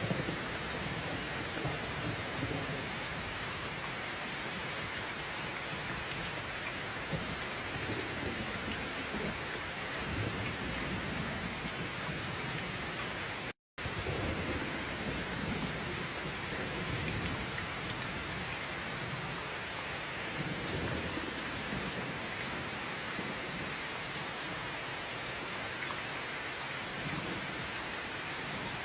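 Steady heavy rain with a low rumble of thunder coming and going underneath. About halfway through, the sound cuts out to silence for a split second and comes straight back.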